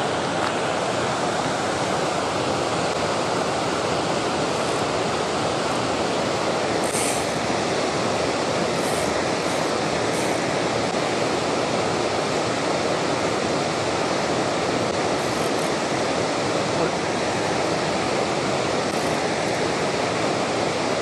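Water pouring steadily over a low stepped concrete weir into the pool below, a constant, even rush.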